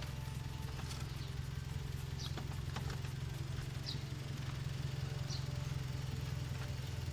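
A vehicle engine idling steadily with a low, even hum. A few faint clicks and short high chirps come about every second and a half.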